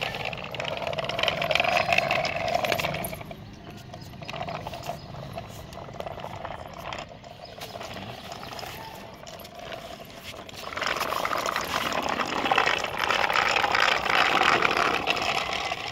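Small metal toy tractor and its trolley rolling over concrete, with the wheels and loose metal body rattling over a faint steady hum. It is louder in the first few seconds and again from about two-thirds of the way through.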